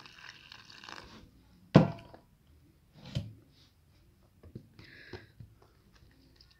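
Water pouring into seasoned besan (gram flour) in a plastic tub, stopping about a second in. Then two dull knocks, the louder one just under two seconds in, and a few light spoon clicks as the batter is stirred.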